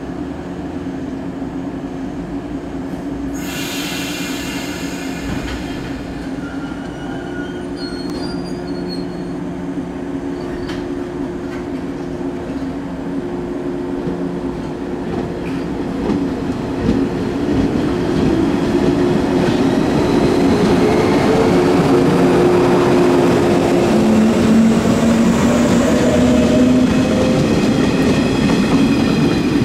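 JR 115 series electric train standing, then pulling away and passing close by, its traction motors' tone rising in pitch and growing louder as it accelerates through the second half. A brief high-pitched sound comes about four seconds in.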